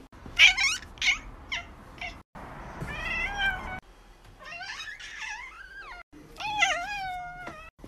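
Cats meowing: a few short, sharp sounds in the first two seconds, then three long, drawn-out meows that bend up and down in pitch.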